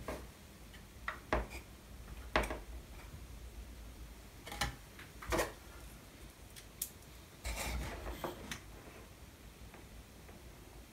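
Scattered small clicks and knocks of plywood model parts and tools being handled on a cutting mat, with a brief rustle about two-thirds of the way in.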